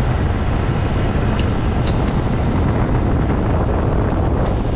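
Refrigeration condensing unit running with a steady, loud rumble and fan whoosh, with a couple of faint ticks.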